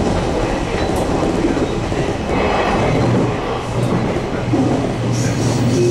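Running noise of a JR Kyushu 813 series electric multiple unit heard from inside the train: a steady rumble of wheels on rail, with a low hum that comes up about halfway through.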